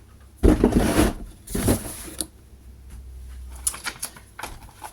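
Handling noise from unpacking a sewing machine's accessories: two loud stretches of rustling and clatter in the first two seconds, then a faint low hum with a few light clicks.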